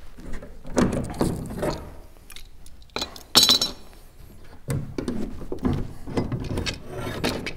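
Clamps being loosened and taken off a glued-up section of a wooden boat's top strake: irregular clinks, knocks and scraping of metal against metal and wood, with one loud clink about three seconds in.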